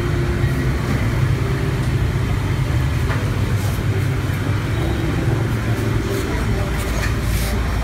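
A steady low engine rumble, with a few faint brief hisses in the second half.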